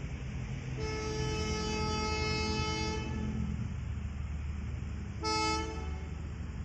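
Diesel locomotive horn sounding twice: a long blast of about two seconds, then a short blast about two seconds later, over a steady low rumble.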